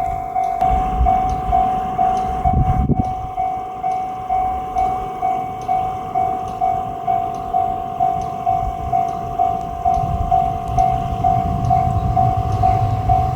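Japanese railway level-crossing warning bell ringing evenly, a little over two strokes a second. Under it is the low rumble of a diesel railcar, which grows heavier from about ten seconds in.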